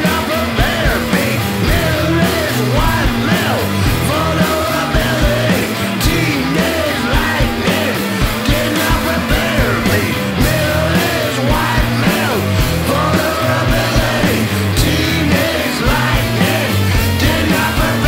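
Rock band playing loudly: electric guitars and a drum kit with cymbals, under a singer shouting the lyrics.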